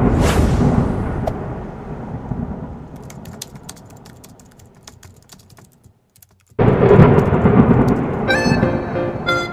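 Intro sound effects for an animated logo. A loud low rumble with a whoosh at the start fades away over about six seconds into faint crackles, then breaks off. A second loud rumble hits about six and a half seconds in, and music of quick stepping notes comes in near the end.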